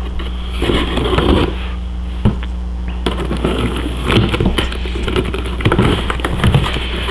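Packing tape on a cardboard box being slit with a razor blade and the flaps pulled open: scattered scraping, crackling and tapping, over a steady low hum.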